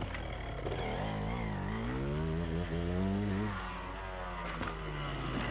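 Two-stroke JCM trials motorcycle engine revving under throttle. The pitch dips, climbs for about two seconds, then falls away, and a couple of sharp knocks come near the end.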